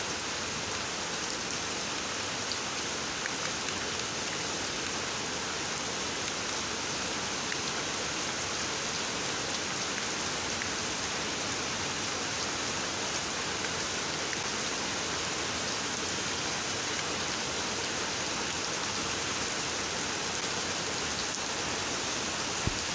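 Steady hiss like falling rain, with a few faint scattered ticks.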